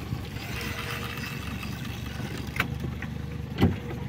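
Boat motor running steadily at low speed, with two sharp knocks about a second apart near the end.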